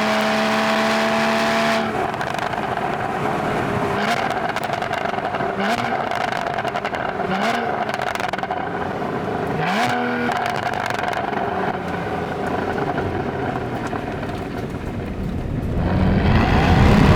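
Porsche 981 Boxster GTS's 3.4-litre flat-six under way, holding steady high revs, then lifting off about two seconds in. Short rises in revs with sharp exhaust crackles follow several times, and the engine revs up louder near the end.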